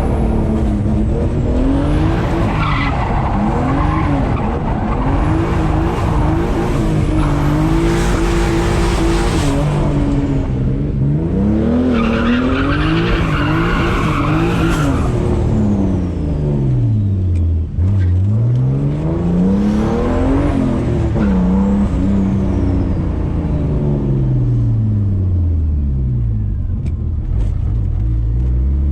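Turbocharged BMW E36 engine driven hard, its pitch climbing and dropping again and again as it accelerates and lifts off. Bursts of hiss and turbo flutter come between the pulls.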